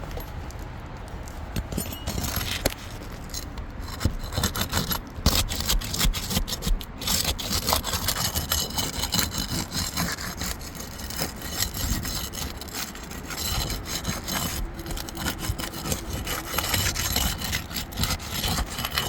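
Irregular scraping and rubbing on asphalt roof shingles, a rasping sound with many short scuffs.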